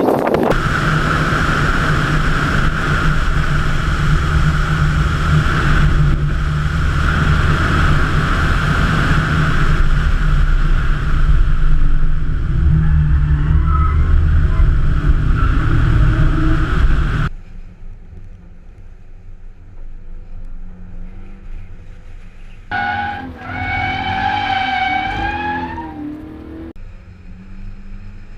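Toyota 86's 2.0-litre flat-four engine running hard under load, heard in a string of edited clips. The sound drops abruptly to a quieter level a little over halfway through, and later an engine rev rises and falls for a few seconds.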